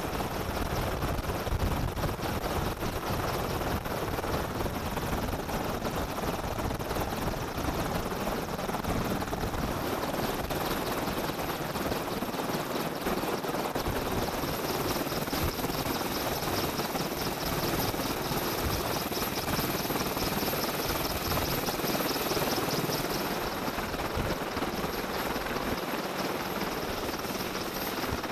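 AH-64D Apache helicopter running on the ground with its main rotor turning: a steady high turbine whine over rotor and engine noise, with a rapid even pulsing from the blades through the middle part.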